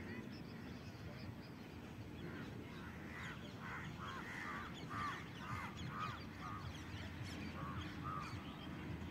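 A bird calling in a run of short, repeated notes, about two a second, starting a couple of seconds in and stopping near the end, over a faint low steady rumble.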